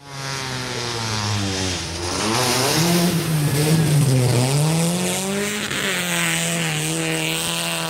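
Rally car engine revving hard as the car drives through a shallow river ford, with water spraying up around it. The engine pitch dips and climbs several times and is loudest in the middle as the car passes close by.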